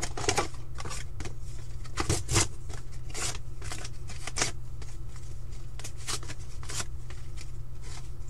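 Trading-card packs from a Mosaic football Mega box being handled and sorted by hand: scattered short rustles and clicks of foil packs sliding and tapping together, over a steady low hum.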